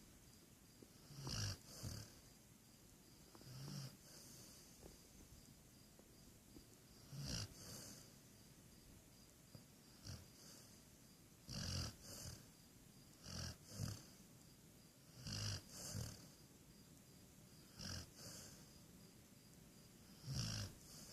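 Snoring in short snorting breaths, mostly in pairs about half a second apart, recurring every two to three seconds.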